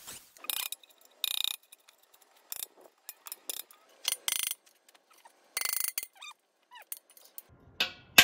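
Hammer driving a chisel under the nameplate on a steel air compressor tank: six or seven irregular metal taps and short scrapes, each ringing briefly, with the loudest hit at the very end as the plate comes loose.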